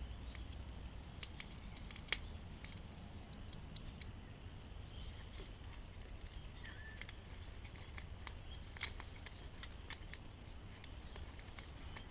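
Scattered small clicks and taps of hand tools against the parts of a smartphone as its broken screen is pried and cut out, the sharpest about two seconds in, over a low steady hum.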